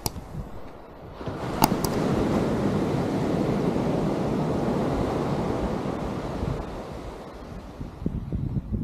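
Ocean surf: a wave breaking and washing up the sand, swelling about a second in and fading away over the last few seconds, with wind on the microphone. A few sharp clicks in the first two seconds.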